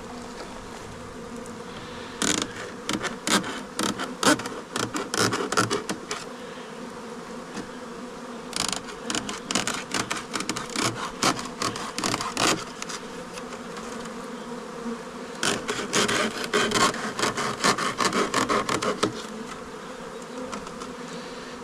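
A mass of honeybees buzzing steadily, with bursts of scraping and clicking as a knife cuts and pries open the wooden bee package, in three spells of rapid scrapes.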